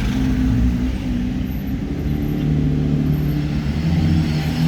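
Engines of a slow-moving queue of Ferraris in a traffic jam, running at low revs: a steady low drone with slight shifts in pitch.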